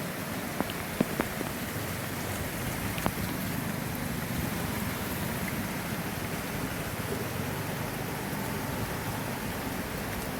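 Heavy rain falling steadily, a dense even hiss, with a few sharp taps of drops striking close by early on.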